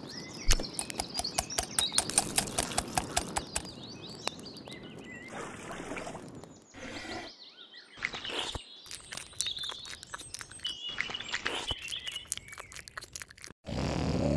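Birds chirping over a quick run of small clicks and taps, with the sound breaking off briefly twice, around the middle and just before the end.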